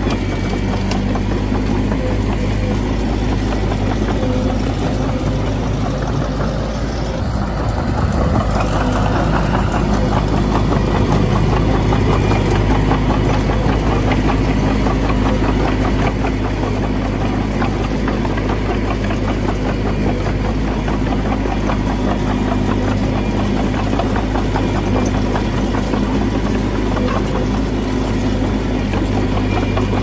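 Heavy diesel earthmoving machine's engine running steadily, dipping briefly about seven seconds in and then running louder.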